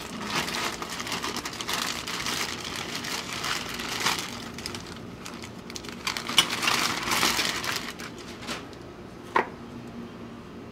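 Plastic bag crinkling and rustling in bursts as a new window regulator is pulled out of it, then one sharp click near the end.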